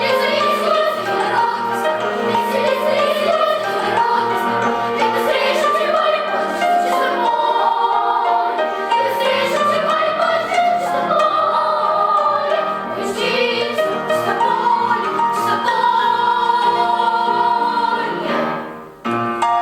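Children's choir singing a Russian song in several parts, with sustained, shifting chords. The sound breaks off sharply near the end, then resumes briefly.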